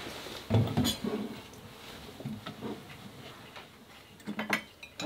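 Scattered light knocks and clicks of small objects being handled and set down, with a few heavier thuds about half a second in and a quick cluster of sharp clicks near the end.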